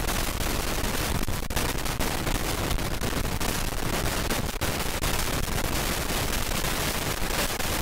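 Hurricane-force wind blowing hard across the microphone, over heavy surf breaking and storm-surge water washing across a road. It is a steady loud rush broken by rapid crackling thumps of wind buffeting.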